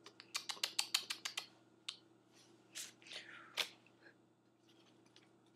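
A quick run of sharp clicks, about eight in a second, then a few scattered clicks and a short falling squeak, over a steady low hum.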